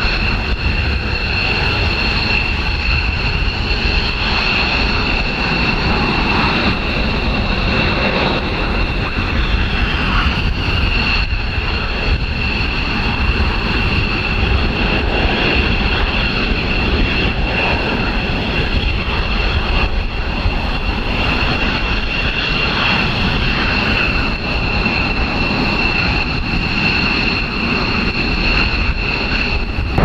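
Twin jet engines of F-15J fighters running at low, taxi-level power: a steady whine with two high, unchanging tones over a constant rush of jet noise.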